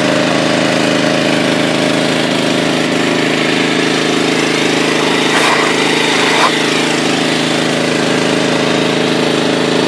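Old Yamaha EF1000 non-inverter generator running at a steady governed speed while powering a Ridgid shop vacuum, its engine hum blending with the vacuum's motor whine. A light knock or two about halfway through.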